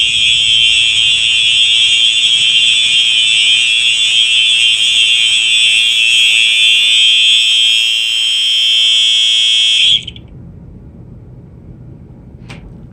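Two Simplex 4903 electronic fire alarm horns sounding a loud, steady, unbroken buzzy horn tone. The tone cuts off suddenly about ten seconds in, leaving low room noise.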